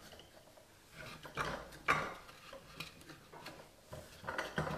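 Scattered clicks and knocks of steel parallel bar clamps and wooden boards being handled as the clamps are tightened around a square face frame, with one sharp knock about two seconds in.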